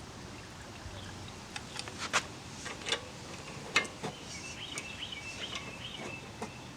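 Small birds chirping over steady outdoor background, with a few sharp clicks about two, three and four seconds in.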